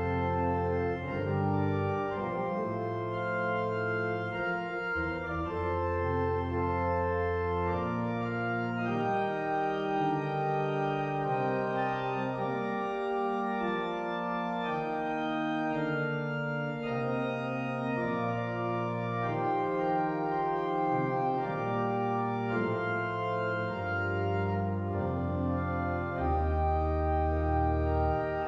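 Church organ playing slow, hymn-like music in held chords that change every second or two, with deep pedal bass notes coming in and out.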